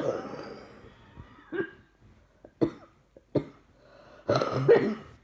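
A woman coughing from a chest infection, a string of separate coughs. A harsh cough comes at the start, then short single coughs, then a longer, louder double cough near the end.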